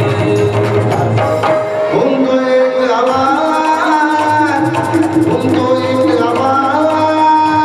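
Live Marathi folk song: singing with tabla accompaniment and held melodic tones.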